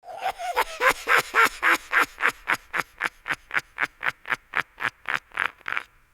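A high-pitched, shrill evil laugh for a dwarf-like fantasy villain: a fast, staccato cackle of about twenty short bursts at roughly four a second. It is loudest in the first couple of seconds, then fades and cuts off near the end.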